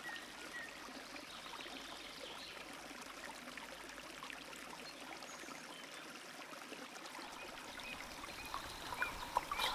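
Small spring-fed woodland stream trickling steadily, with a few light clicks near the end.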